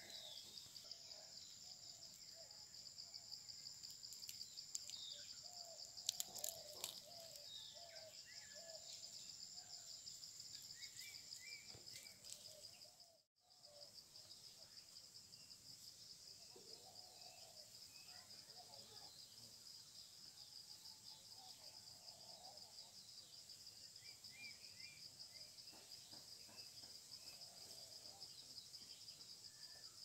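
Faint outdoor ambience: a steady, high-pitched insect trill with scattered short bird chirps. The sound cuts out completely for a moment about halfway through.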